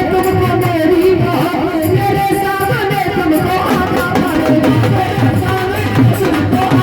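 Hindi devotional bhajan music: a gliding melody line over a steady hand-drum beat.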